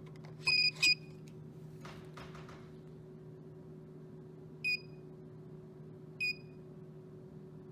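Contactless card reader on a vending machine beeping as a card is tapped: a longer high beep and a short one about half a second in, then two single short beeps about a second and a half apart while the payment is authorizing. A steady low hum runs underneath.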